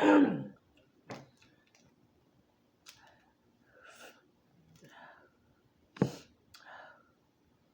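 A woman's harsh throat-clearing cough at the start, then soft breaths, sighs and small mouth clicks while eating, and a second short, sharp burst from the throat about six seconds in.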